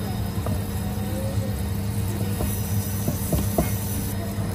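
A steady low mechanical hum, with a few short, light knocks and clinks in the second half.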